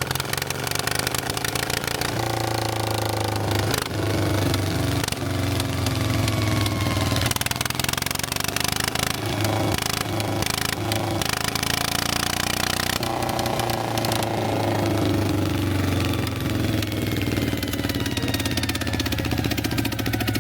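Engine of a two-wheel walking tractor running continuously as it works a muddy rice field, its pitch rising and falling several times as the throttle is worked, with a steady clatter.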